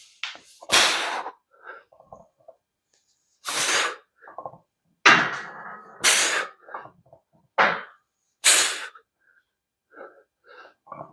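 A man's sharp, forceful breaths out, about six of them, each sudden and fading over half a second, as he presses a 135-pound barbell overhead rep after rep. Quieter short breaths come in between.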